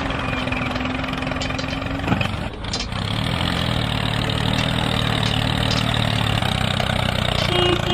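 Tractor engine idling steadily: a steady hum for about two seconds, a knock, then from about three seconds in an even, low engine note.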